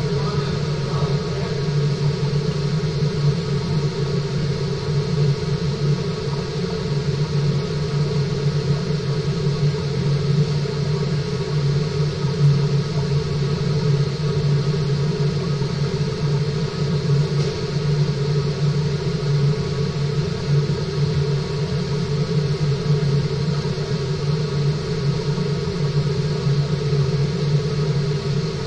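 Water circulation system of a fish-farming tank running: a steady low hum with a rush of water, and several faint steady tones above it.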